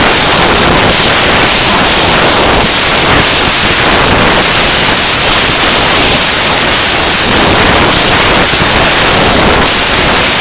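Noise music: a loud, unbroken wall of static-like noise that fills every register, with slight flickering in the highest range and no beat or melody.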